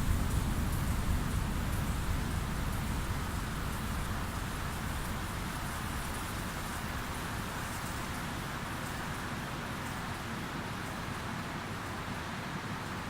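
Processed beach recording of wind and ocean waves: a steady rushing noise with a deep rumble that slowly fades over the first several seconds, then holds at a lower level.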